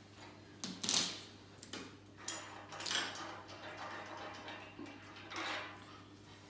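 Irregular metallic clinks and scrapes as a side plate bolt is undone and removed from a steel tube bender frame, the loudest about a second in.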